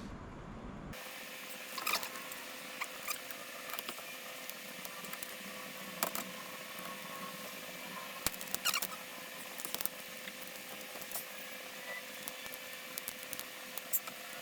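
Scattered small clicks, ticks and faint squeaks of hands working on a laptop's plastic case and small parts during disassembly, over a steady background hiss with a faint hum.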